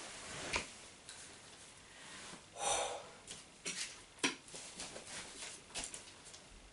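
Small objects handled and set down on a floor mat: a few faint clicks and knocks, with a short hiss about two and a half seconds in.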